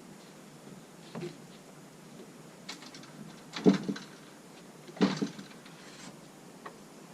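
A few irregular knocks and clattering thumps, the loudest a cluster about three and a half seconds in and another about five seconds in.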